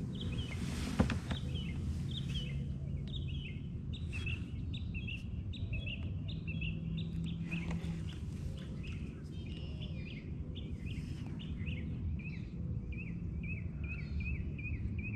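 Small birds chirping in quick runs of short, repeated high notes over a low steady rumble, with one sharp click about a second in.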